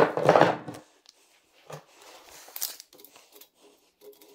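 Steel chain rattling as it is handled on a workbench, loudest in the first second, followed by scattered light clicks and rustling.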